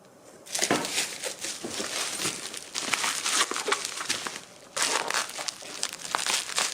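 Packaging crinkling and rustling as snacks are taken out of a delivery box, in two long stretches with a short break about four and a half seconds in.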